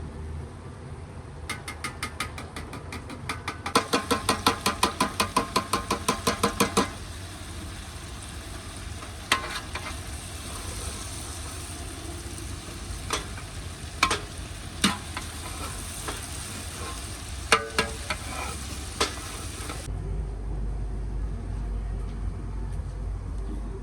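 Food frying in a pot while a spoon stirs it: first a quick, even run of clinking strokes against the pot, about five a second, then a steady sizzle with an occasional clink. The sizzle cuts off suddenly near the end, leaving a low rumble.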